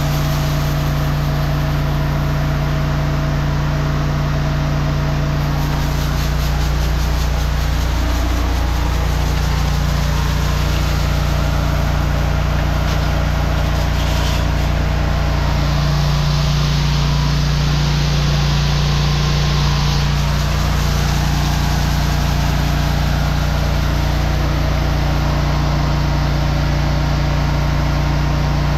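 Trailer-mounted drain jetter's engine running steadily while water hisses from a hose nozzle spraying a concrete floor; the spray gets louder for a few seconds just past halfway.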